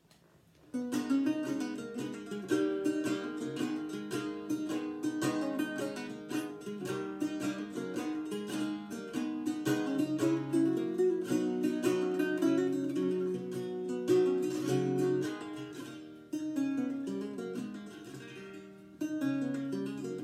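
Solo small guitar playing a gigue, a quick run of plucked notes and chords that begins about a second in.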